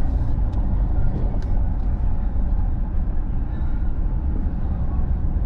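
Steady low rumble of a car driving, engine and road noise heard from inside, with a few faint ticks and clicks over it.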